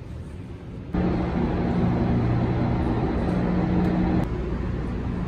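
Steady drone of a MARC commuter train standing at a station platform, with a low, even hum. It starts abruptly about a second in and drops to a quieter hum near the end.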